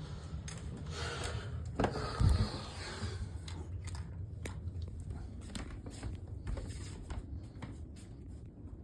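Scraping and rubbing with scattered light clicks as a toy is swept under a couch to fish out a Slinky, with a louder thump about two seconds in.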